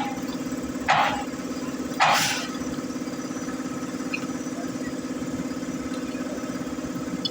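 Mercedes-Benz Actros MP4 truck's diesel engine idling steadily. Two short hisses come about a second apart near the start.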